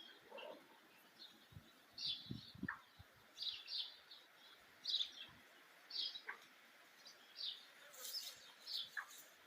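Small birds chirping: short high chirps repeating about once or twice a second, with a few lower notes between them and a few soft low knocks about two seconds in.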